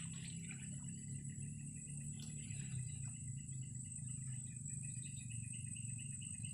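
Insects droning steadily at a high pitch over a low steady hum. From about halfway a rapid run of repeated chirps comes in, about three to four a second.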